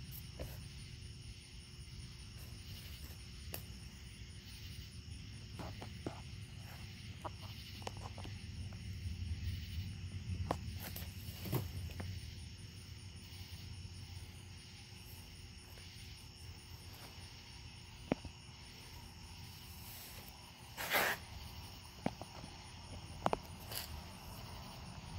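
Insects chirping steadily at night over a low rumble of distant thunder that swells and fades. A few scattered clicks and a short rustling burst come near the end.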